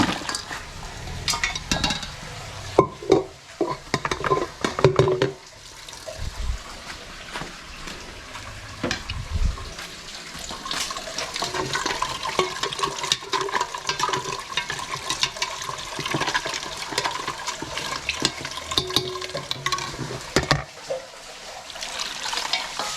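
Bones knocking against a metal pot several times in the first few seconds, then bone broth sloshing and splashing in the pot.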